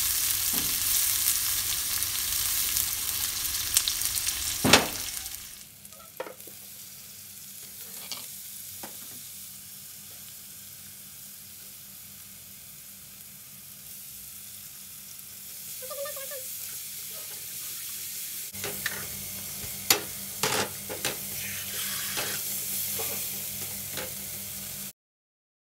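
Sliced shallots and garlic sizzling in hot oil in a non-stick wok while a spatula stirs them, with a sharp spatula knock just before the sizzle drops away about five seconds in. A few scattered knocks follow, then a fainter sizzle returns with spatula clacks and scrapes as the ground spice paste is stirred into the pan.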